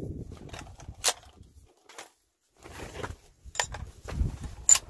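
Handling noise from a Remington 700 bolt-action rifle in a metal MDT chassis: scattered metallic clicks and knocks as it is picked up and its AICS magazine is worked into the well, with the sharpest click near the end.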